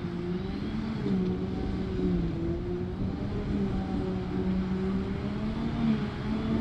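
Claas Jaguar 950 self-propelled forage harvester chopping grass for silage, with a tractor running alongside: a steady engine drone under load whose pitch wavers slightly.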